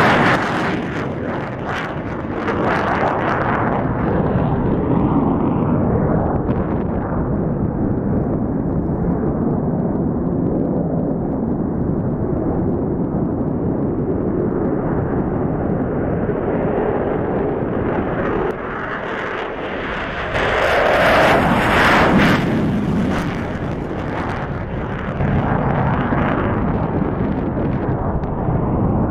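F-15 Eagle fighter jets' twin Pratt & Whitney F100 turbofan engines at full takeoff power, a continuous jet roar. It starts loud as one jet climbs away, its hiss fading over the first few seconds into a steady low rumble. The roar swells again to its loudest and fullest about 21 seconds in as the next jet takes off and passes, then builds once more near the end.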